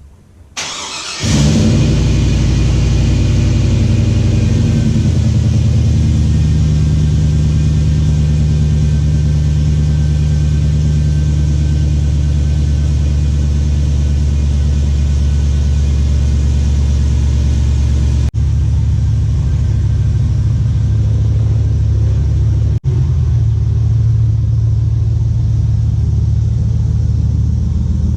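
A pickup's V8 engine, likely the 2002 Chevy Silverado 1500's, starts about a second in and then runs steadily at a low, even idle. There are two brief dropouts later on.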